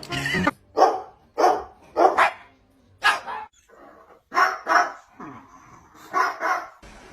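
A dog barking about eight times in short, sharp barks, some single and some in quick pairs, with brief pauses between them.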